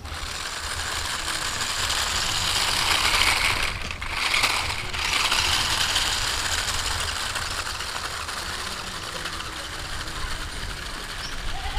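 Toy-grade eight-wheel RC car's small electric motor and gearbox whirring as it drives over gravelly dirt. The sound dips briefly twice around four and five seconds in.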